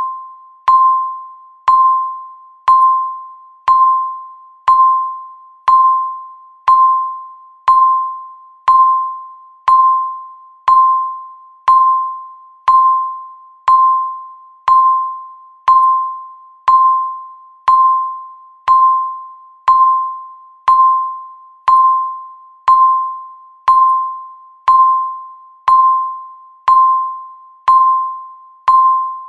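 Countdown timer's tick sound effect: a single bell-like ding once a second, each one ringing out and fading before the next.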